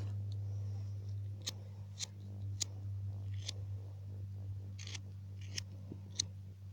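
Hand-held lighter being struck again and again: about eight sharp clicks at uneven intervals, one near the five-second mark a little longer and scratchier, over a steady low hum.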